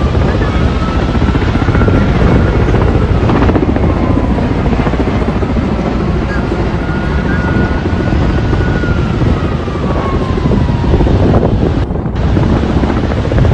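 Helicopter running: a steady fast chop of the rotor with a thin whine that slowly rises and falls in pitch.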